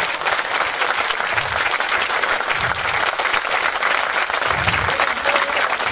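A large crowd clapping and applauding steadily, with a few dull low thumps underneath.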